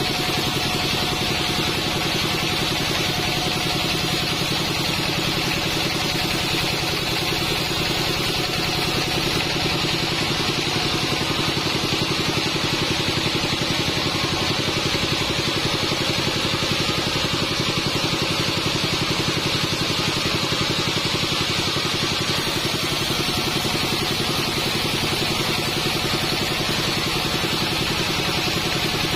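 A sawmill bandsaw and its drive running steadily: a continuous mechanical drone with a steady hiss over it, no breaks or changes.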